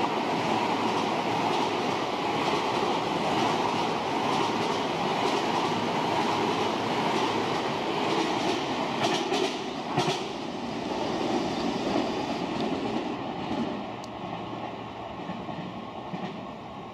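A Tobu 50000-series electric train running through the station at speed without stopping: steady wheel-on-rail rumble, with a few sharp clicks over the rail joints about nine to ten seconds in. The noise dies away near the end as the train clears.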